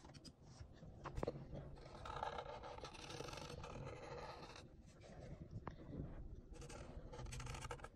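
Faint sound of a Sharpie marker's felt tip rubbing across paper in a few long strokes as an eye is outlined and inked in.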